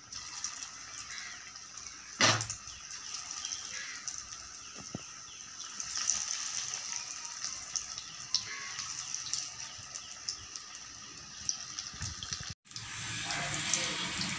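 Batter-coated paneer cubes deep-frying in hot oil: a steady sizzling hiss with scattered small crackles, and one sharp knock about two seconds in. The sound cuts out for a moment near the end.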